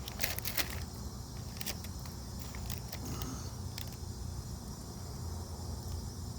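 Steady low hum, with a few short crackles of a crinkling chip bag in the first second and a couple more later.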